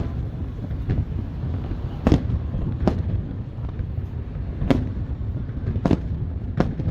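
Aerial fireworks shells bursting: about seven sharp bangs at uneven intervals, the first the loudest, over a steady low rumble.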